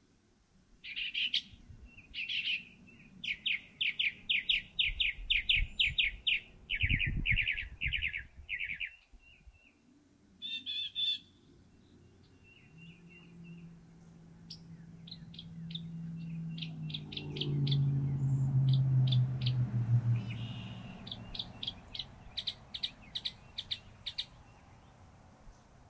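Northern mockingbird singing: phrases of rapid, repeated notes, each run off several times in a row with short pauses between. In the middle, a low drone swells and fades, falling in pitch.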